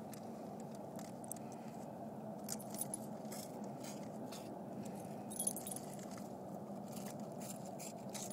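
Dog collar tags jingling in short bursts as the dogs jostle, loudest about three and five and a half seconds in, over a steady low noise.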